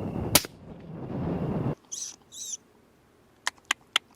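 A single sharp rifle shot about a third of a second in, over a steady rushing noise that cuts off abruptly. Then two short, high squeaky calls, followed by a few faint sharp ticks near the end.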